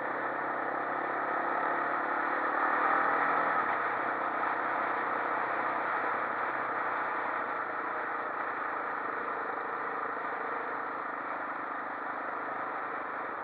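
Quad bike engine running while riding, heard from on board: it revs up over the first three seconds or so, then holds a steady cruise over a constant rushing noise.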